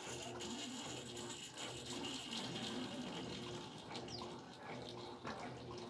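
Electrolux LED14 washing machine in its intermediate spin: the motor runs steadily while water rushes through the machine.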